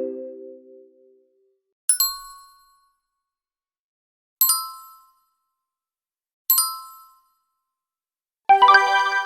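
Game-show style 'correct answer' chime sound effects. A lower chime fades out at the start, then three short bright dings ring out about two seconds apart, each decaying quickly. Near the end a fuller, many-note chime starts.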